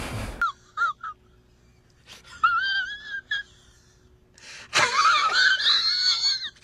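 A man's high-pitched, wavering crying wail, coming in three drawn-out spells with short silent gaps between them.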